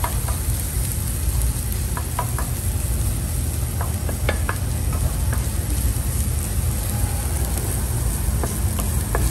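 Diced onion, garlic and ginger sizzling in butter in a non-stick frying pan, stirred with a wooden spoon that scrapes and taps the pan now and then.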